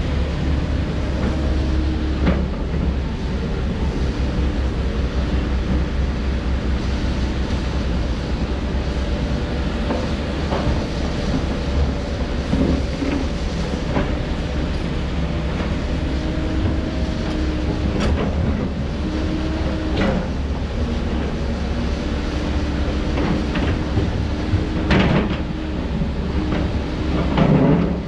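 Heavy earthmoving machinery running steadily with a deep diesel rumble and a whine that shifts in pitch. Sharp metallic clanks and knocks come every few seconds.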